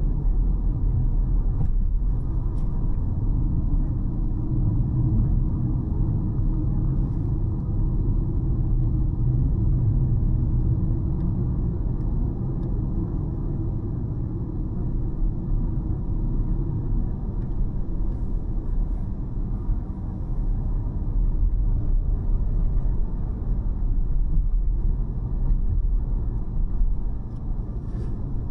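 A car driving on city roads: a steady, low rumble of engine and tyres.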